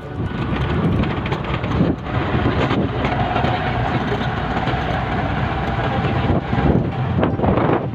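Steady rumbling noise of a moving vehicle, with a faint steady tone in the middle.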